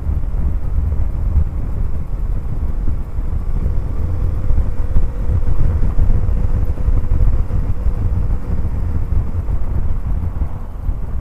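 Honda C90 Cub's small four-stroke single-cylinder engine running while riding, under heavy wind buffeting on the microphone.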